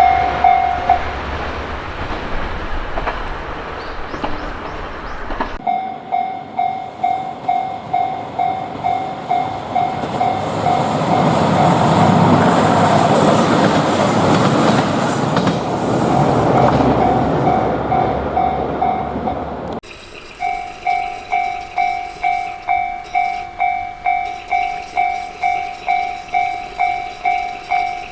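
Japanese level crossing's electronic warning bell ringing its repeated 'kan-kan' strike, a little over twice a second. A train passes over the crossing in the middle, its rumble and wheel clatter swelling and then fading. The sound breaks off and resumes abruptly twice.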